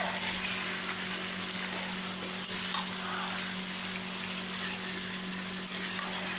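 Chicken pieces coated in garlic and ginger paste sizzling steadily in hot oil in a kadai while a spatula stirs them, with a few faint scrapes. This is the kosha stage of a Bengali chicken curry, the masala being sautéed down until the oil separates.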